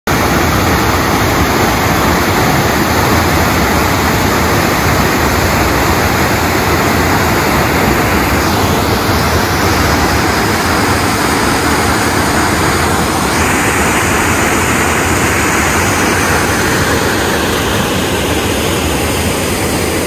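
Waterfall: a steady, loud rush of water pouring down a rock chute into a pool.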